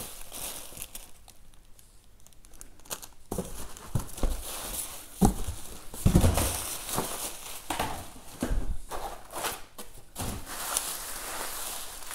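Bubble wrap and plastic parts bags crinkling and rustling as a cardboard box is unpacked by hand, with a few dull thuds of the box being moved about five to six seconds in.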